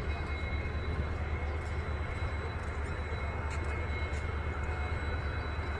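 Indian Railways WDP-4 diesel locomotive's EMD two-stroke V16 engine running with a steady low hum. Thin steady high whistles sound above it.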